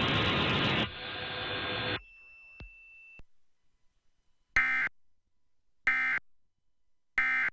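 Broadcast audio cuts off about a second in; a few seconds later come three short, identical bursts of Emergency Alert System digital data tones (SAME), about 1.3 s apart.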